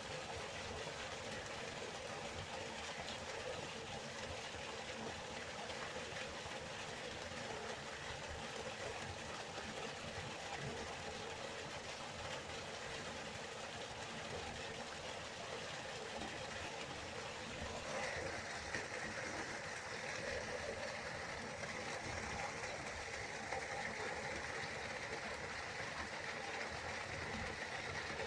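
Steady rushing of a flowing river, an even wash of water noise; about two-thirds of the way in it turns brighter and hissier.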